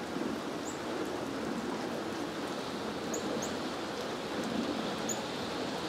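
Steady rain falling, an even hiss without a break, with a few short high chirps now and then.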